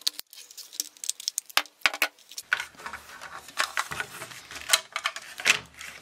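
Irregular plastic clicks and snaps as the housing of a Kidde smoke detector is pried apart, its retaining tabs worked loose one by one.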